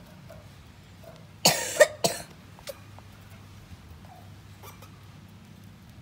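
A person coughs, a short double cough about a second and a half in; otherwise only a few faint ticks over low background noise.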